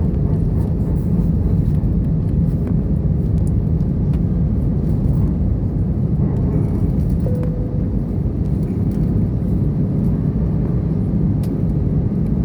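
Airplane in flight heard from inside the cabin: a steady, even low drone of engines and rushing air.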